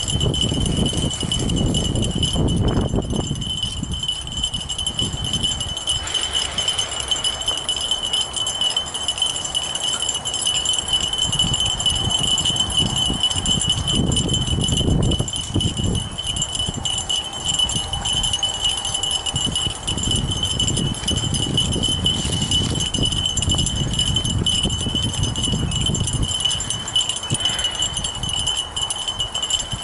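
Fat-tyre bike riding along a dirt trail: uneven low rumbling from the tyres and wind on the microphone that comes and goes, under a steady high-pitched whine.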